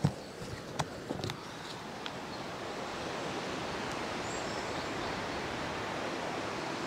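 A few footsteps, then a steady rushing hiss of outdoor ambience that swells slightly about two and a half seconds in and holds.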